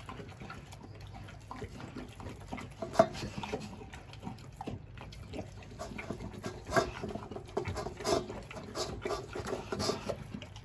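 Cane Corso eating quickly from a stainless steel bowl of liver pasta mixed with dry kibble: wet chewing and smacking with irregular crunches and clicks.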